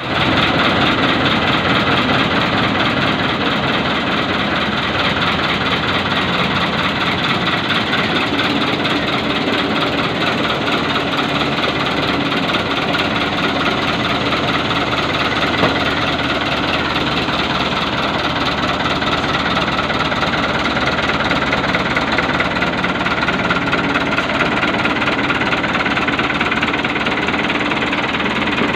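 Fiat 640 tractor's diesel engine running steadily at a constant speed.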